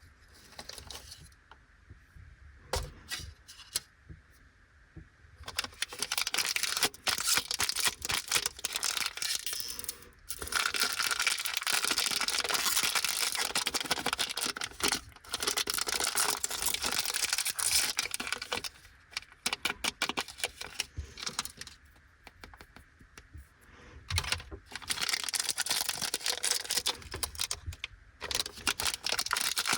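Plastic wrapper of a lollipop crinkling and tearing as it is opened by hand. The crackling comes in long stretches with short pauses, starting after a few quieter seconds.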